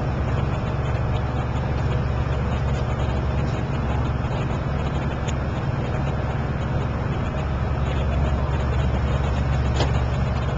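A boat's engine running steadily with a low drone, heard from on board while under way.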